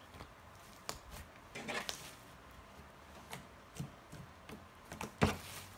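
Soft clay slime being stretched and then pressed and folded on a table by hand, giving scattered sticky clicks and pops, with a short crackly run about two seconds in and the loudest pop about five seconds in.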